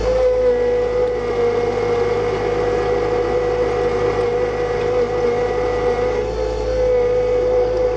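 John Deere 2025R compact tractor's three-cylinder diesel engine running at a steady speed while pulling a rock rake.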